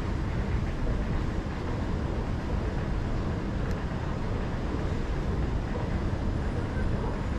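Singapore MRT train running, a steady low rumble.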